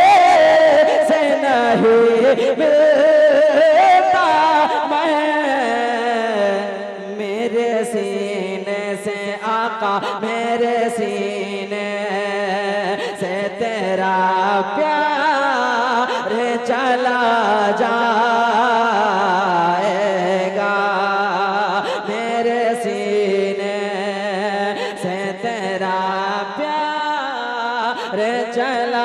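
A man chanting a naat through a microphone and PA system, drawing the words out into long held phrases whose pitch winds slowly up and down.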